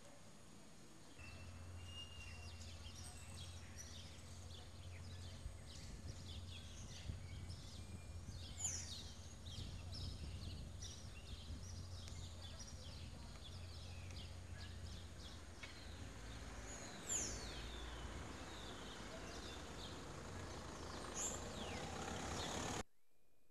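Small birds chirping, many short, quick, falling chirps in rapid succession, over a steady low hum. The sound cuts off suddenly near the end.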